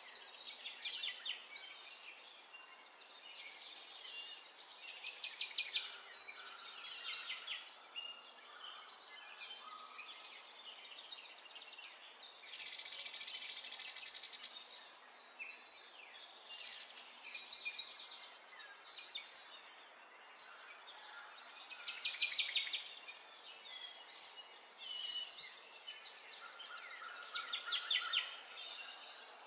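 Birds singing: quick high trills and runs of chirps, one phrase after another with short gaps, over a faint steady hiss.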